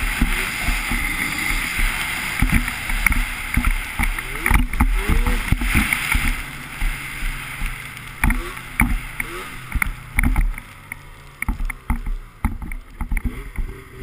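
Snowmobile engine revving up and down as the sled runs through deep powder, with many sharp knocks and thumps from the machine bouncing, and wind on the microphone. About ten seconds in the engine eases off to a quieter, lower steady hum.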